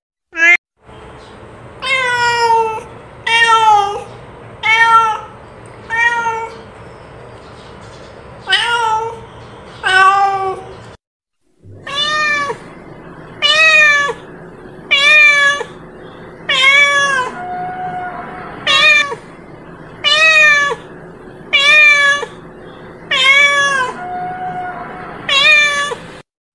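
Domestic cat meowing over and over, one calling meow about every one and a half seconds, each rising then falling in pitch, with a short break about eleven seconds in.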